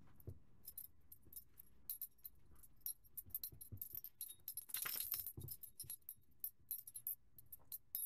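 African grey parrot nibbling a piece of food held in its foot: scattered small beak clicks and ticks, with a louder rustling cluster about five seconds in.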